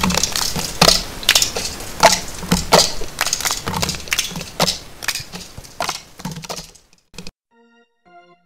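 Footsteps of a group running on a hard hallway floor: quick, irregular slaps that fade as the runners move away and die out about seven seconds in. A few soft keyboard notes begin near the end.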